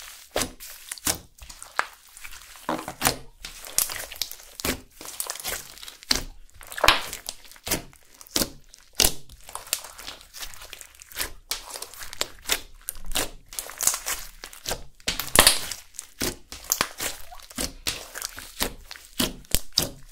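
Hands squeezing, stretching and poking a large blob of clear slime with gold glitter mixed in: an irregular run of sticky squelches, crackles and sharp pops as trapped air bursts through the slime.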